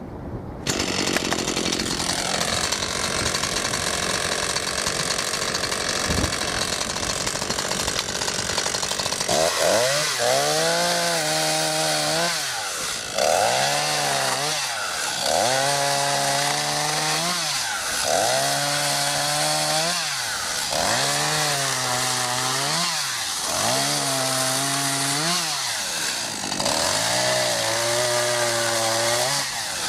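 ECHO CS-500P 50.2 cc two-stroke chainsaw running at high revs, cutting wood. From about ten seconds in, its engine pitch sags and recovers roughly every two seconds as the chain loads up in the cut.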